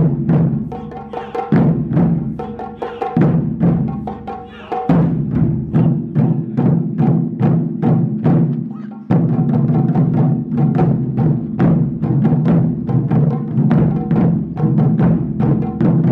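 Japanese taiko drums beaten in a driving, even rhythm of about three strikes a second, each stroke ringing on. The playing eases a little about three seconds in, then comes back louder about five seconds in.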